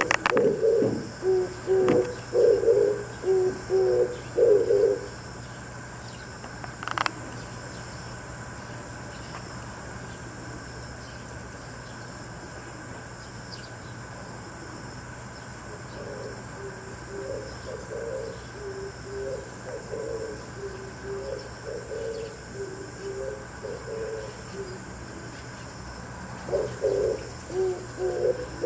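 Oriental turtle doves cooing back and forth: a near dove's loud rhythmic cooing phrases at the start and again near the end, and a fainter, more distant dove answering in between.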